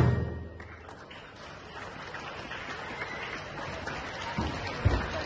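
A marching band of brass, saxophones and drums cutting off its final chord, which dies away in the first half second. After that only a faint, steady outdoor hiss remains, with a couple of soft low thumps near the end.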